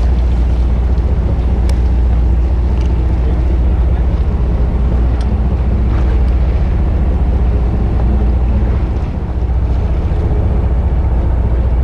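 Steady, loud low rumble of wind buffeting the microphone on a small fishing boat at sea, with the boat's running noise and water washing against the hull.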